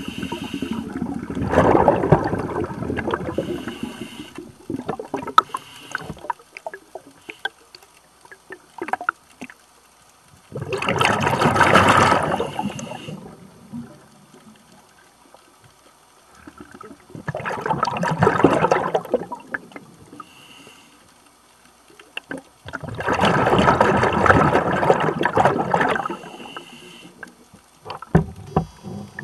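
Scuba diver breathing through a regulator underwater: exhaled bubbles rush out in bursts of about two seconds, four breaths roughly six seconds apart, with quiet between.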